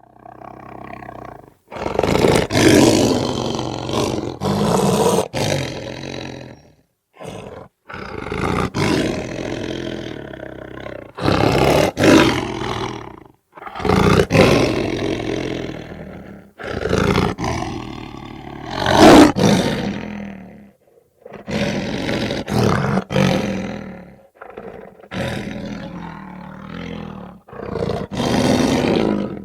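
Lion growling and roaring in a run of separate calls, each lasting one to three seconds with short pauses between them; the loudest comes about two-thirds of the way through.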